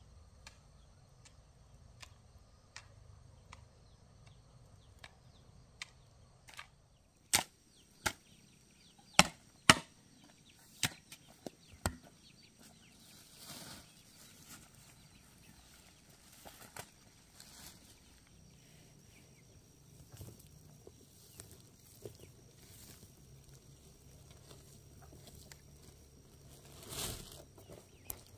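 A cluster of about six sharp chopping or knocking strikes, irregularly spaced, over faint, evenly spaced ticking, with a short rustle near the end.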